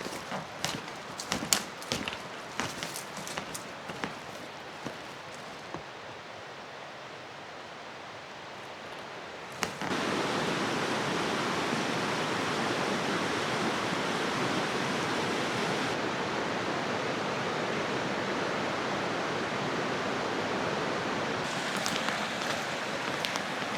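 Mountain stream water flowing steadily, becoming suddenly much louder and fuller just before ten seconds in. Before that, scattered sharp clicks and knocks sound over fainter running water, and a few clicks return near the end.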